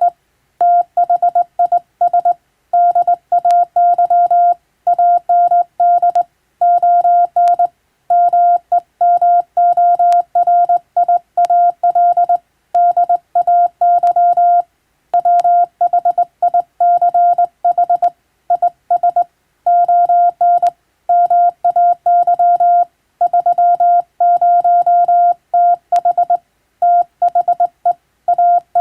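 Hand-keyed Morse code: a steady mid-pitched beep switched on and off in short dots and longer dashes, with brief pauses between letters and words.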